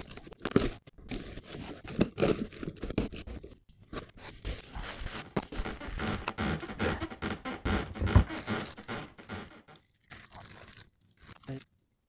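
Cardboard shipping box and packing material scraping, crinkling and knocking as a tripod is unpacked and lifted out, with a dull thump about eight seconds in.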